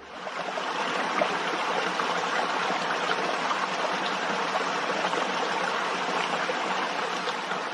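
Water falling in a fountain, a steady splashing and trickling rush that fades in over the first second.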